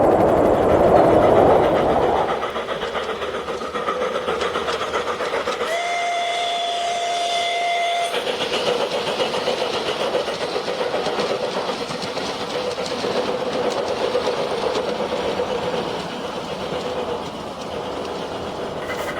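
Sound unit of a G-scale model steam locomotive running with a steady rhythmic chuff, and a whistle blown once for about two seconds near the middle. A louder rushing noise fills the first two seconds.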